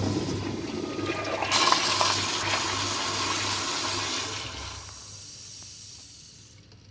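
Zurn commercial toilet flushing: a loud rush of water that grows stronger about a second and a half in, holds for a few seconds, then fades away over the last couple of seconds.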